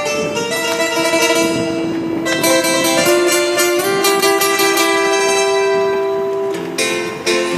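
Live acoustic band music: strummed acoustic guitars under a melody of long held notes.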